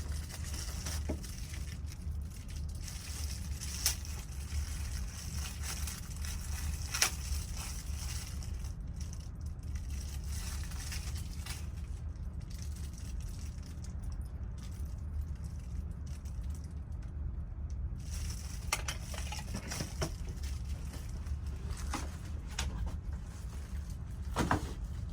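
Soldering iron working desoldering wick over circuit-board pads, a faint sizzle of hot flux with scattered small clicks, over a steady low hum from bench equipment. The sizzle stops for several seconds midway and then comes back.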